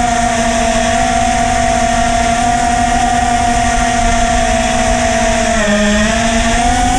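Small FPV quadcopter's four iFlight Xing 1408 brushless motors spinning 3-inch tri-blade props, whining steadily over wind noise from the onboard camera. The pitch sags briefly about six seconds in as the throttle eases, then rises again.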